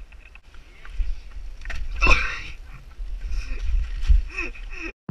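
Wind rumbling on a mountain bike rider's action-camera microphone while the bike rolls over wet fallen leaves on a paved path, with rustling and rattling, a louder scrape about two seconds in, and a sudden cut to silence near the end.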